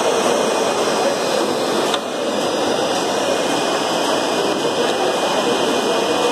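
Steady, even whir of a conveyor-belt label printing line running, with no distinct beats or clicks.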